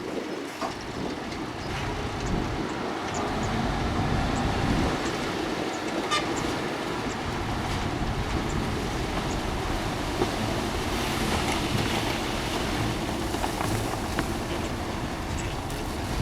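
Heavy earthmoving machinery, a bulldozer and dump trucks, running steadily with a low engine rumble and scattered short metallic clanks and knocks.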